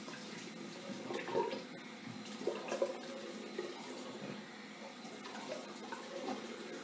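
Tap water running into a bathroom sink, with a few small splashes.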